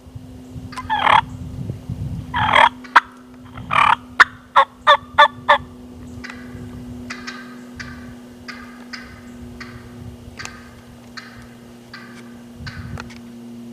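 Hen wild turkey calling. It gives a few loud, drawn-out yelps, then a quick run of five sharp cutts about four seconds in, then a long even series of fainter yelps, about two a second.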